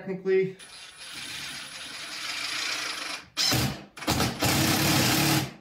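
Ridgid cordless impact driver driving a wood screw: the motor whirs steadily for about two and a half seconds, then the driver hammers in two louder rattling stretches as the screw tightens, stopping abruptly near the end.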